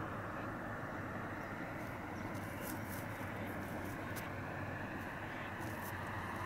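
Steady open-air background noise: a low rumble and hiss with a few faint, brief high ticks.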